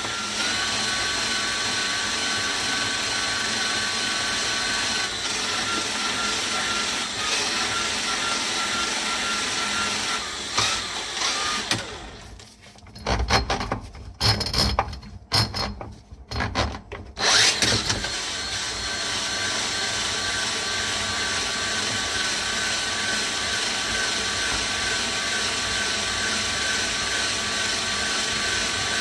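DeWalt cordless drain snake motor running with a steady whine as the cable is drawn back into the drum. About twelve seconds in it stops and starts in several short bursts for around five seconds, then runs steadily again.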